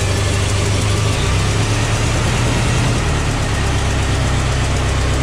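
Ford Model T four-cylinder engine running just after a cold start. Its speed shifts about a second in and again about three seconds in.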